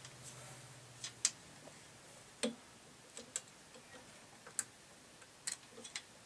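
Irregular small clicks and taps of metal parts and tools being handled in a jukebox mechanism, a dozen or so at uneven intervals. A faint low hum stops about a second in.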